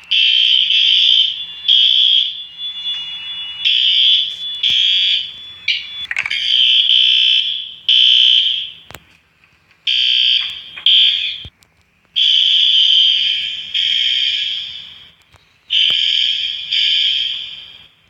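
Siemens fire alarm sounder blaring a harsh, buzzy high tone in irregular on-off blasts, each lasting from under a second to about two seconds, with short gaps and occasional clicks between them.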